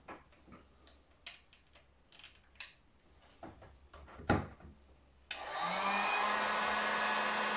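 A few light knocks and clicks, then about five seconds in an electric heat gun switches on: its fan spins up with a low hum that rises briefly and settles, and it runs with a steady loud blowing rush.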